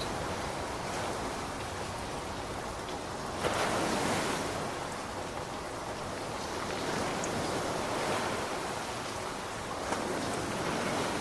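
Ocean surf washing in as a steady rushing wash, with one wave breaking more loudly about three and a half seconds in.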